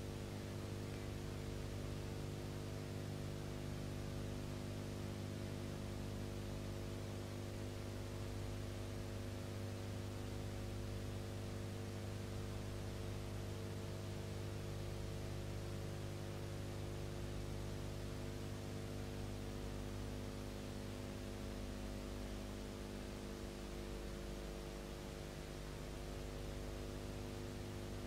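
Steady electrical mains hum with a buzzy stack of overtones over a constant hiss: playback noise on the soundtrack of a silent film, with no recorded sound of its own.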